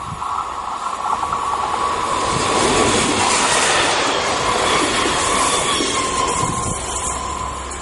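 Double-deck Z 24500 electric multiple unit (TER 2N NG) passing close by at speed: a rush of wheels on rail and air that builds, peaks about three seconds in, then fades as the train moves away.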